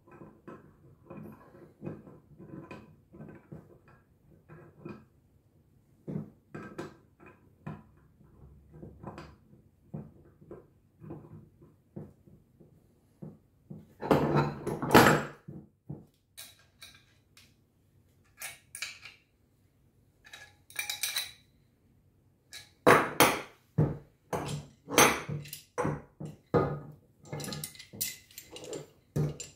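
Clinks and knocks of stainless steel pipe fittings and wrenches being handled and set down on a wooden workbench while a T-piece is fitted to a brass vane pump. Light scattered clicks at first, with louder clattering about halfway through and again over the last several seconds.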